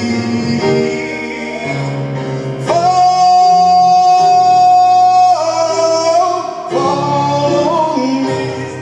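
Gospel worship singing to electric keyboard accompaniment, the singer drawing out a long held high note from about three to five seconds in, between shorter wordless phrases.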